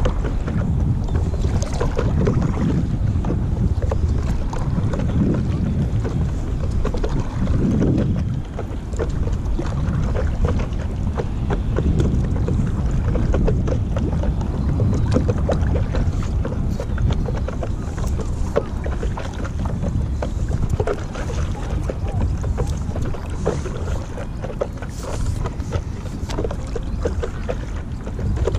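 Steady wind noise on the microphone of a camera mounted on a stand-up paddle board paddle, with water splashing and dripping around the paddle blade as it dips and pulls through the dock water.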